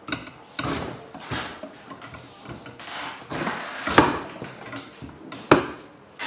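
Stainless-steel lever coconut cutter slicing the top off a green tender coconut: several rough cutting strokes and knocks as the blade is worked down through the husk, the sharpest about four seconds in and another about a second and a half later.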